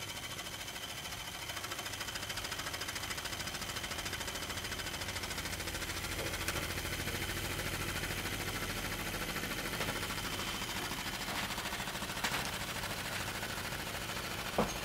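Small battery-powered DC motor spinning an off-centre weight under a cardboard shake table: a steady, rapid buzz as it shakes the platform, with a few light knocks.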